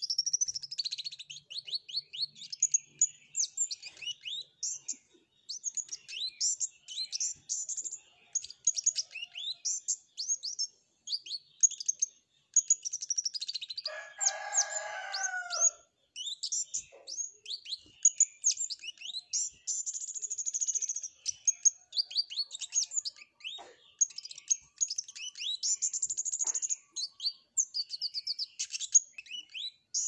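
Flowerpecker (cabe-cabean) singing continuously in rapid high chirps and trills, its song filled with learned canary phrases. A lower, drawn-out call cuts in about fourteen seconds in.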